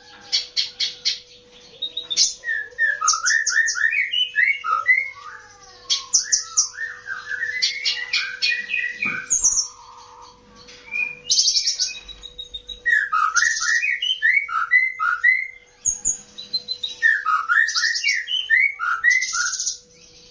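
A songbird singing a varied song in repeated phrases: fast high trills alternating with runs of quick down-slurred whistled notes, with brief pauses between phrases. A faint steady hum runs underneath.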